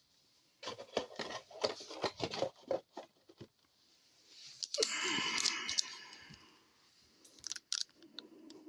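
Packaging of a hockey card hobby box being torn open: a run of quick scratching and tearing strokes, then one longer tear about five seconds in, and a few light clicks near the end.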